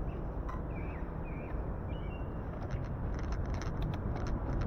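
Steady low rumble of wind and road noise from a moving e-bike on a wet morning. Over it, a few short bird chirps come in the first couple of seconds, with scattered light ticks throughout.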